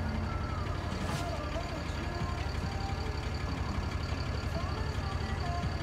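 DAF LF 55.250 truck's six-cylinder diesel engine idling steadily, heard from inside the cab as a low pulsing hum, with a faint steady high-pitched tone over it.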